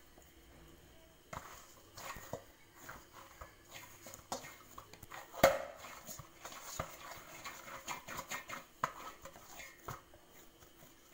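Soft banana-and-curd bun dough being kneaded and turned by hand in a stainless steel bowl: irregular soft slaps and knocks of the dough and fingers against the bowl, the loudest about five and a half seconds in.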